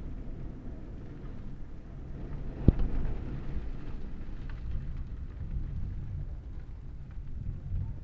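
Thunderstorm: a low, steady rumble of thunder with rain, and one sharp crack a little under three seconds in.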